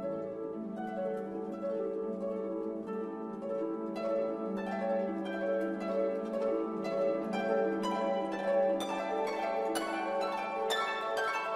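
Instrumental background music: plucked string notes in a light melody over a held low note, the plucking growing busier about four seconds in.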